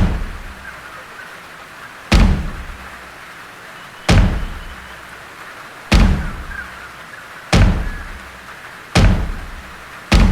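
A series of heavy, deep thuds, each fading out quickly. They come about two seconds apart at first and draw closer together, roughly a second apart near the end.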